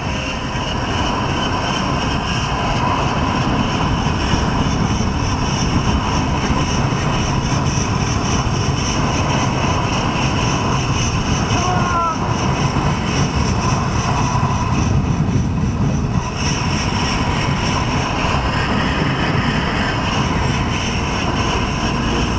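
Wind rushing over a GoPro microphone while the rider's zip-line trolley runs along the steel cable at speed: a steady roar with a thin high whine over it.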